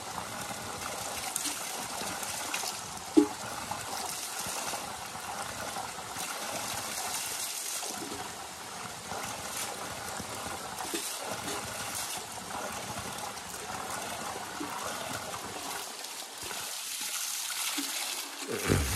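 Spring water pouring steadily from a spout in a stone wall and splashing onto rocks below, with a single sharp knock about three seconds in. Near the end a metal pail of water is tipped out in a louder splash.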